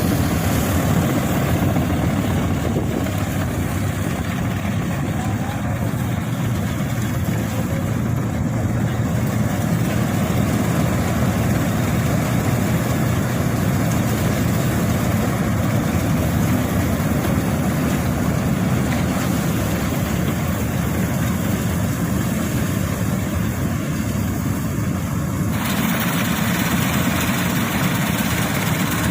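Combine harvester running steadily while harvesting wheat, a continuous engine and machinery din. Its higher-pitched noise grows stronger near the end.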